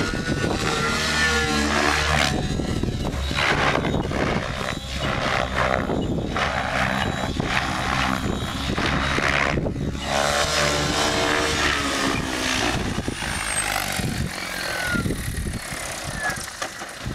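Electric 700-size RC helicopter (Assault 700 DFC) in flight: the motor whine and main-rotor whoosh rise and fall in pitch as it manoeuvres and descends. The sound drops away near the end as it lands.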